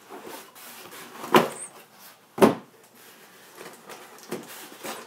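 A cardboard box and its packaging being handled and pulled apart to free an RC rock crawler: rustling and scraping, with two sharp knocks about a second apart near the middle.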